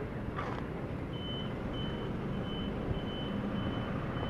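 Honda CG 125's single-cylinder four-stroke engine running with a steady low rumble. From about a second in, a high-pitched beep repeats about twice a second over it.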